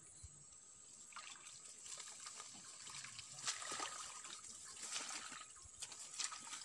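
Faint water splashing and rustling as a tilapia is pulled out of the swamp and carried up the grassy bank, irregular from about a second in.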